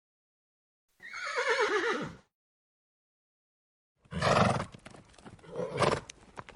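A horse whinnying about a second in, the call falling in pitch as it goes. After a pause, another horse vocalisation at a similar level, followed near the end by sharp hoof clip-clops.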